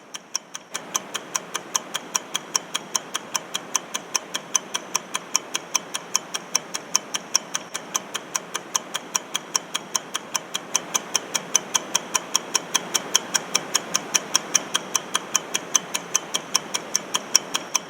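Clock-ticking countdown timer sound effect, evenly spaced sharp ticks about four a second, over a faint steady background hiss that steps up a little under a second in.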